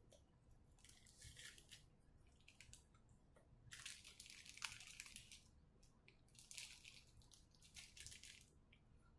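Faint crinkling and rustling of small plastic packaging as the doorbell's installation hardware is handled. It comes in several short bursts, the longest and loudest about four to five seconds in.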